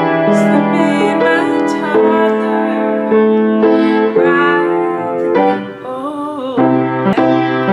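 Piano played by hand: sustained chords and melody notes, changing about once a second.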